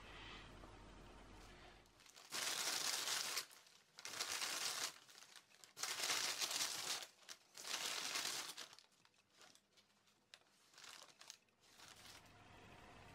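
Paper bakery bag crinkling in four bursts of about a second each as bread rolls are taken out of it.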